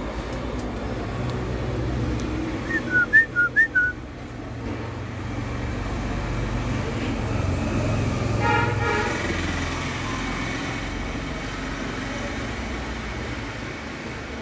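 Steady low outdoor rumble, with a quick run of five short whistled chirps about three seconds in and a brief buzzing pulse about halfway through.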